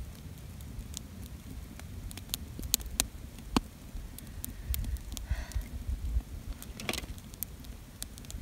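Small wood campfire crackling, with scattered sharp pops and snaps over a low wind rumble on the microphone.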